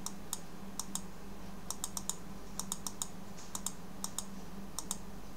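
Computer keyboard keys clicking, about twenty sharp clicks at uneven spacing, some single and some in quick pairs, over a faint steady hum.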